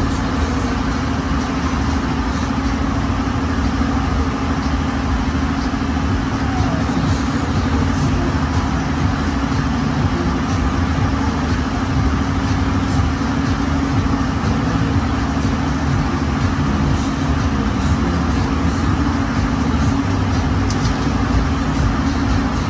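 Fairground ride machinery running: a loud, steady mechanical drone with a constant low hum that does not change.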